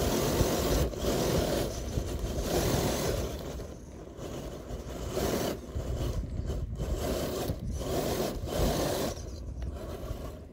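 Tyres of an RC rock crawler scrabbling and slipping on loose dirt and grit as it drives a steep slope, a rough scraping crunch in uneven bursts with short quieter gaps between them.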